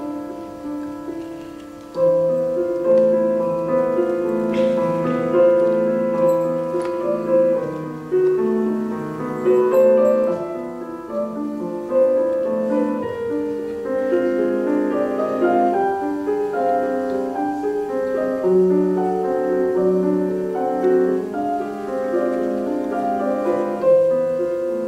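Solo piano playing a slow, flowing passage of overlapping held notes, softly at first, with a fuller phrase beginning about two seconds in.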